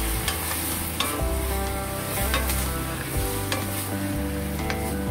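A spatula scraping and knocking against a metal wok as cabbage is stir-fried, with a sharp scrape every half second or so over steady sizzling from the little water just added. Background music with shifting bass notes plays underneath.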